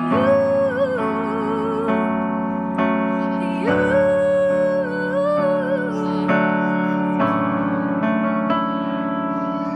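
Digital piano playing slow sustained chords, with a young female voice twice holding a long wordless note with a wavering vibrato.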